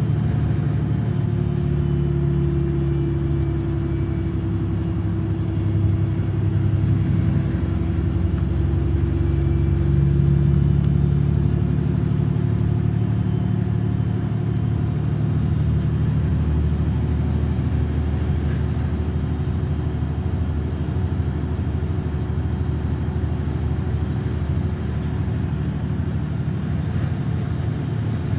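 MAN Lion's City city bus engine idling steadily while the bus stands still, a low even hum.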